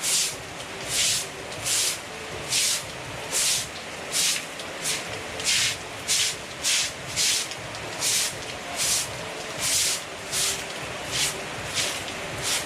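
Broom sweeping rainwater across a flooded yard in short, even swishing strokes, about one and a half strokes a second, over steady rain.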